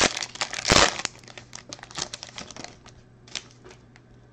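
Silver foil wrapper of a trading-card pack crinkling and tearing open, loudest just before a second in. Lighter crinkles follow as the wrapper is pulled off the cards, thinning out by about three seconds in.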